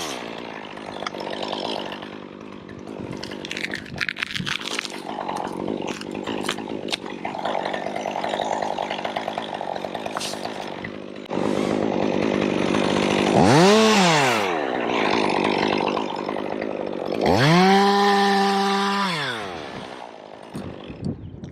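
Chainsaw running steadily, then revved: a quick rev up and back down about two-thirds of the way through, and later held at high revs for about two seconds before dropping back.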